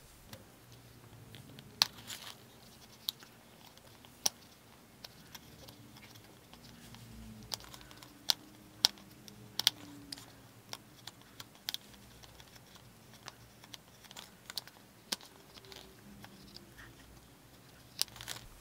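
Hobby knife trimming thin vacuum-formed plastic against the edge of a paper body tube in a series of small cuts: irregularly spaced sharp clicks as the blade bites through the plastic.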